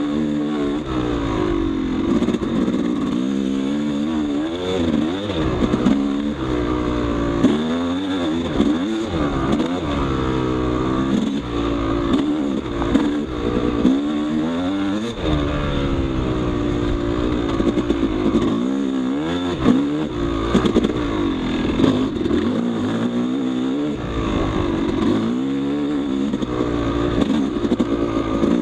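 Yamaha YZ250 two-stroke dirt bike engine revving up and down while riding, its pitch rising and falling repeatedly as the throttle is worked and gears change, with occasional sharp clicks and clatter.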